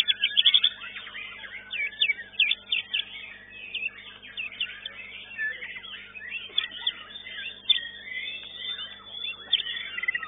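White-rumped shama (murai batu) singing in contest, a fast, varied run of sharp whistles and chirps, loudest in the first second.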